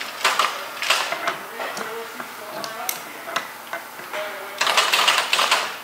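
Metal clinking and clicking from an overhead hoist's hook and chain being handled, with a louder spell of rattling near the end.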